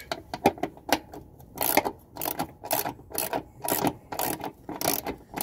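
Ratcheting socket wrench clicking in short back-and-forth strokes, about two a second, as it runs a bolt up into a running-board mounting bracket, snugging it but not yet tightening it fully.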